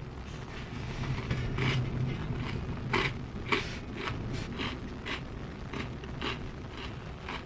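Swedish hard tack crispbread giving a run of short, crisp scraping and crunching sounds, about a dozen strokes at an uneven pace. A steady low hum runs underneath.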